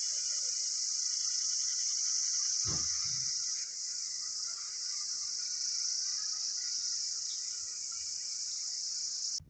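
A steady, high-pitched shrill of insects, a cicada- or cricket-like chorus, which cuts off abruptly near the end. There is one low thump about three seconds in.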